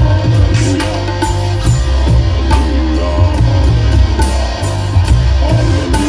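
Live amplified band music with a steady drum beat, bass guitar, electric guitar and keyboards, and a man singing into a microphone over it.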